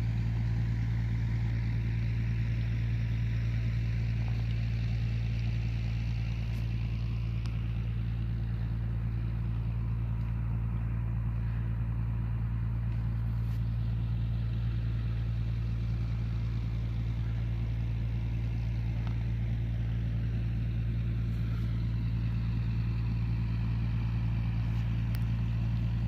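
An engine running at a constant speed: a steady low hum whose pitch never changes.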